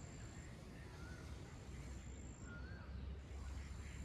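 Faint bird calls, a few short up-and-down whistled notes, over a low steady rumble of outdoor background noise.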